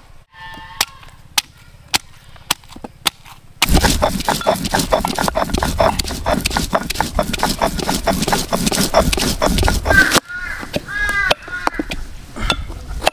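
Spices being ground by hand on a stone slab with a grinding stone: a dense run of rapid, rhythmic scraping and knocking strokes from about four seconds in to about ten seconds in, after a few scattered clicks.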